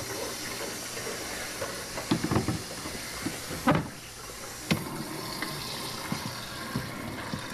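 Kitchen tap running steadily, with a few knocks about two, four and five seconds in as a plastic carpet-shampooer solution tank is handled at the sink.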